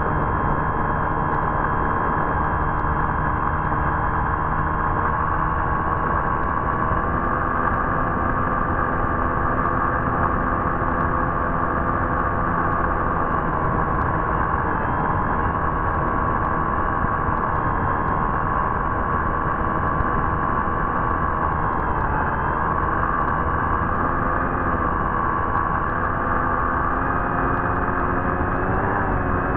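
Electric motor and propeller of an FPV model running continuously, a steady whine whose pitch drifts slightly up and down with throttle, over a hiss of wind and rushing air.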